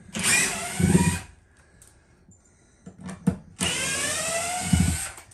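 Power drill backing screws out of a mobile home's subfloor panel, running in two bursts: about a second at the start and a longer one near the end whose whine drops slightly in pitch under load, with a few clicks in between.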